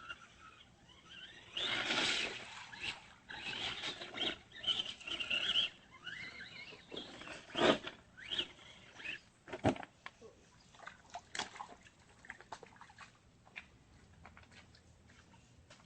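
Radio-controlled rock crawler's small electric motor whining in short, squeaky spurts, with irregular clicks and knocks of its tyres and chassis on creek stones; the whining fades out after about six seconds, leaving scattered clicks.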